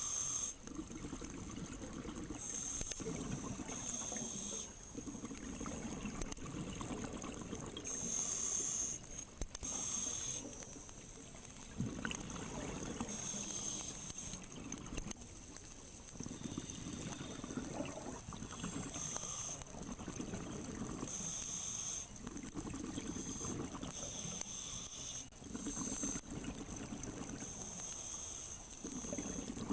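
Scuba diver's breathing through a regulator, heard underwater: hissing inhalations alternating with low bubbling exhalations, repeating every few seconds.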